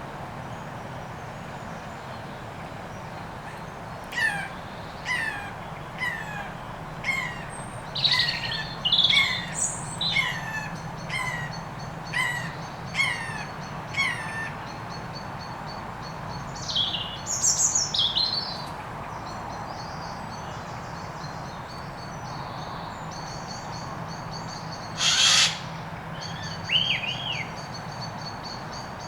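Wild woodland birds calling. About a dozen sharp, falling call notes come in a run, then a few high whistles, with a steady high trill behind them. One loud, harsh call comes near the end.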